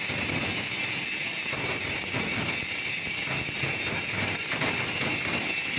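Steady metalworking noise on a large steel shaft, a continuous hiss with fast, irregular crackle.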